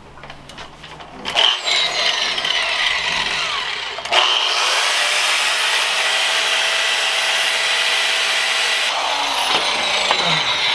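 A power tool cutting through a steel motorcycle drive chain to shorten it: a steady, high-pitched grinding hiss that starts about a second in, grows heavier from about four seconds in and eases slightly near nine seconds.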